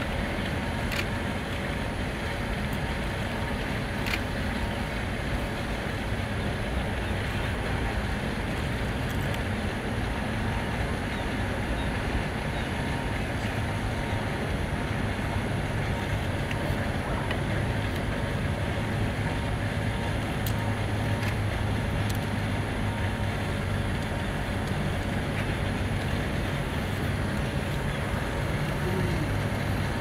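Steady low rumble of outdoor background noise, with a handful of faint sharp taps scattered through it.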